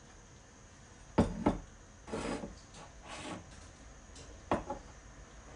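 Kitchen handling sounds: two quick knocks about a second in, then two short noisy scrapes, then another knock near the end. These fit a glass jar and a small bowl being set down and moved on a hard countertop.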